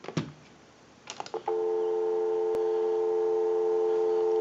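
A few clicks, then a steady telephone dial tone from a single-slot payphone's handset, starting about a second and a half in and held unbroken.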